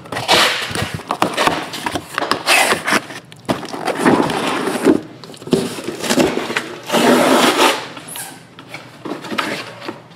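Sealed cardboard shipping case being cut and torn open with a box cutter, then unpacked: a run of scraping, tearing tape and cardboard, and boxes being slid out and handled, in irregular noisy bursts.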